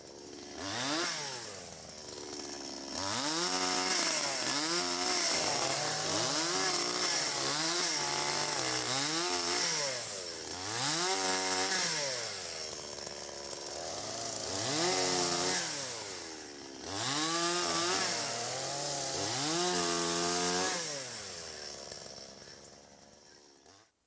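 Chainsaw with a freshly sharpened chain running, its pitch dipping and rising again about ten times, the pattern of repeated cuts into wood. It stops near the end.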